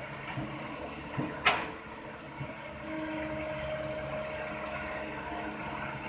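Toy vehicles being handled: a few light clicks and one sharp knock about one and a half seconds in, then a steady hum with a faint whine from about three seconds in.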